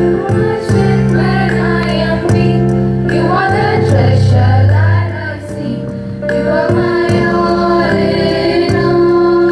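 Prayer song: female voices singing over steady held instrumental accompaniment. The voices come in about a second and a half in, drop out briefly around five seconds, and come back in.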